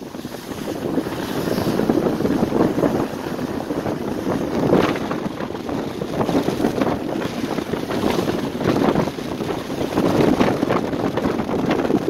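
Strong gusty wind blowing on the microphone, swelling and easing every second or two, over the rush of a rough, choppy sea.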